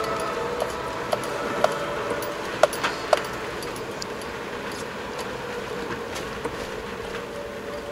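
Rain and wet-road noise heard from inside a moving car, with a steady hum underneath. A few sharp clicks come about half a second apart in the first three seconds.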